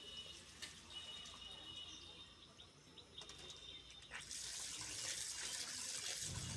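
Faint, repeated short bird chirps, then a steady hiss that starts about four seconds in.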